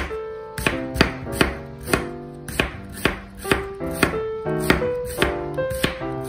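Chef's knife slicing an onion into thin strips on a wooden cutting board, the blade knocking against the board about twice a second. Soft background music with held notes plays underneath.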